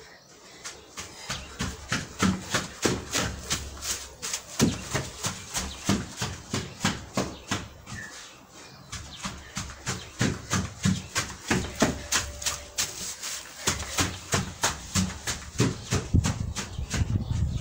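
A long run of quick, fairly even taps and thumps, about three or four a second, broken by a few short pauses, from a person moving about and playing with a small dog.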